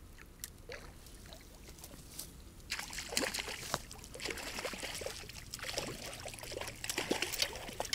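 Water splashing irregularly as a hooked trout is drawn in at the bank, starting about three seconds in after a few faint clicks.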